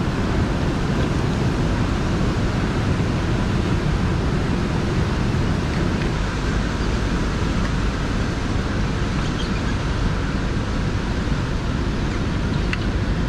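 Steady wind rushing over the microphone, a low rumbling noise, with the sound of open water beneath it.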